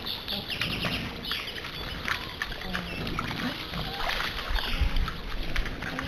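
Wild boars wading and rooting in a shallow muddy pool: irregular splashing and sloshing of water and mud, with short low grunts.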